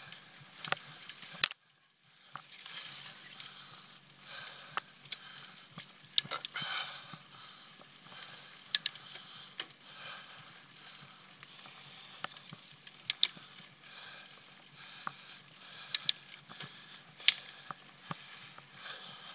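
Mountain bike being ridden on a dirt trail: steady tyre and rolling hiss with frequent irregular clicks and knocks as the bike rattles over bumps. The sound cuts out briefly about a second and a half in.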